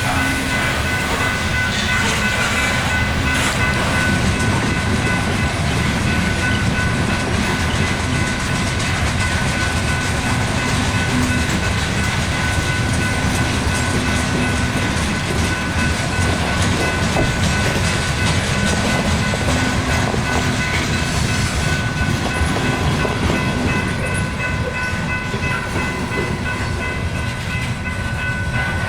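Freight train rolling by: a steady rumble of the train on the rails, with a steady high-pitched ringing tone over it.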